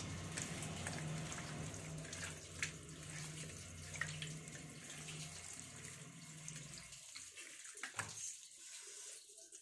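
Tap water running into a steel kitchen sink while raw chicken pieces are washed by hand in a plate, with scattered small clicks and splashes. The running water stops about seven seconds in, leaving a few clicks.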